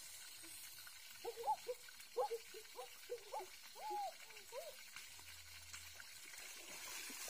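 A soft voice talking in short bursts from about one second in to near five seconds, over a steady hiss of flowing stream water.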